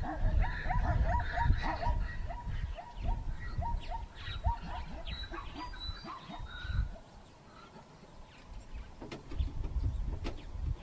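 An animal calling in a quick series of short calls, about three a second, which stops about four seconds in, over a low rumble.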